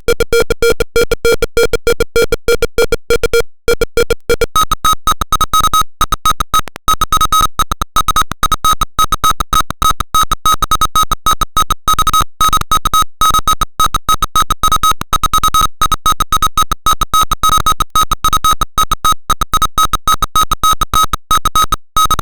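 Simulated piezo buzzer from Tinkercad's Arduino simulator sounding a harsh electronic tone, chopped into rapid stuttering pulses. About four and a half seconds in, it jumps from a low pitch to a much higher one: the proximity alarm switching to another distance range.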